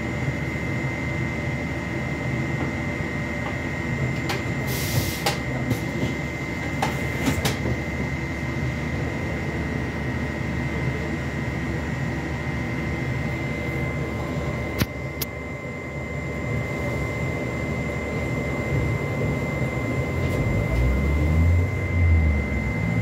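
Inside a moving MAZ 203T trolleybus: steady low running rumble with a constant high-pitched whine, broken by a few sharp clicks and knocks. A louder low rumble comes near the end.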